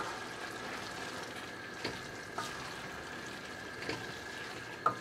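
Oyster mushrooms, onion and chopped herbs sizzling as they braise in wine in a stainless steel pot, stirred with a wooden spoon that knocks lightly against the pot about five times.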